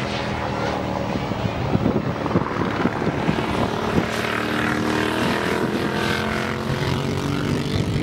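Racing motorcycle engine running hard on track, its pitch rising and falling with the revs as the bike brakes for a corner and accelerates out of it, with more than one engine tone overlapping.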